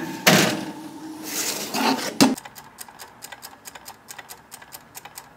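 A metal baking sheet clattering onto a wire oven rack, ending in a knock about two seconds in. Then a wind-up kitchen timer ticks steadily, several ticks a second, as it counts down.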